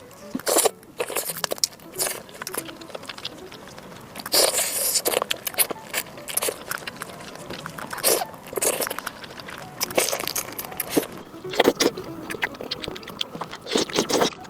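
Close-miked eating sounds: wet chewing and mouth smacks with irregular crackly clicks, coming in clusters.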